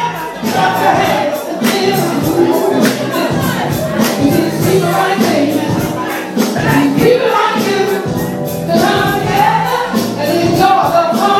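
A woman sings live into a microphone over amplified funk music with a steady beat.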